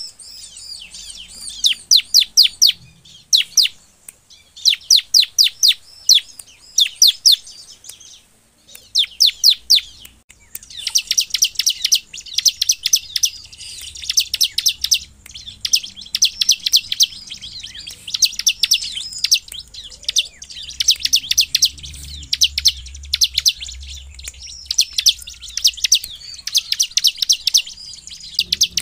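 Bar-winged prinia (ciblek) singing its rapid 'nembak' song: fast runs of sharp, high notes. For about the first ten seconds the runs come in short bursts with pauses, then they run on almost without a break.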